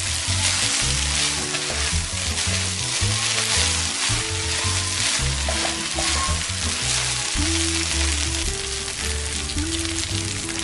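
Fried rice sizzling in a hot wok while it is stirred and turned with a spatula, with fine scraping ticks from the spatula against the pan throughout.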